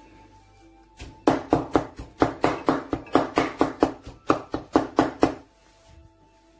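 Chinese cleaver chopping raw pork on a wooden chopping board, mincing it in a fast run of sharp strokes at about five a second that starts about a second in and lasts some four seconds.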